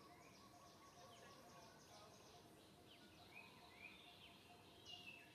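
Faint forest ambience of distant birds calling: short chirps that slide in pitch, repeated every half second or so, with a fast run of high ticks over the first two seconds and a slightly louder call near the end.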